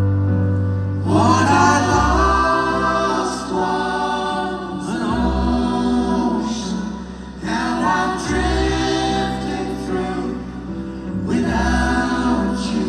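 Live band music: several voices singing held choral harmonies in four long phrases, the first coming in about a second in, over sustained low bass notes.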